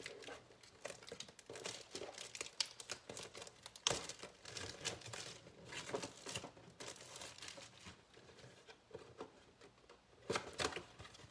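Packaging of a 2019 Bowman Platinum box of baseball card packs being unwrapped and opened: faint, irregular crinkling and tearing with small clicks, a sharp click about four seconds in and louder crinkling near the end.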